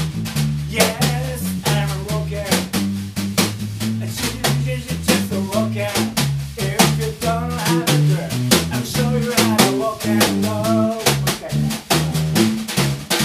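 Live band playing: an electric bass line stepping from note to note about twice a second, a drum kit with snare and rimshot hits, and a saxophone melody wavering above them.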